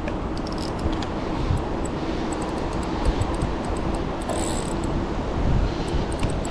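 Daiwa Emeraldas spinning reel working under the load of a hooked fish, with a steady mechanical whirr over heavy wind noise on the microphone.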